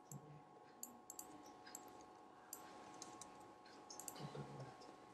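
Near silence: faint, irregular light clicks scattered through, over a faint steady hum of room tone.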